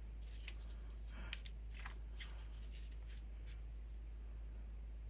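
Faint scattered clicks and rustling of small plastic and metal RC-car parts being handled, with one sharper tick about a second in.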